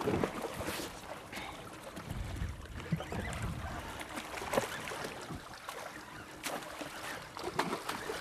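Water splashing and sloshing at the side of a boat as a hooked albacore tuna is led to the landing net, with scattered knocks and clicks.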